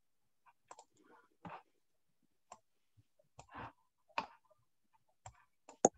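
Faint, irregular clicks and short rustles, about a dozen scattered through the pause, picked up over a video-call microphone; the sharpest click comes near the end.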